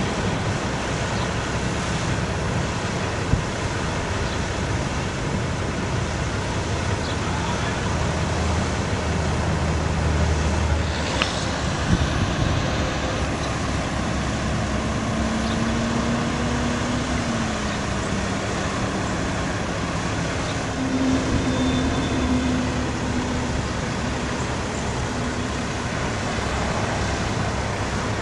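Diesel engine of a Peterbilt 335 bucket truck running steadily, powering the hydraulics as the Lift-All aerial boom unfolds and rises. A faint tone rises a little past halfway, then drops.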